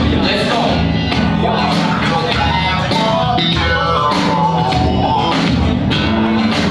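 Loud funk music with guitar and singing, playing steadily.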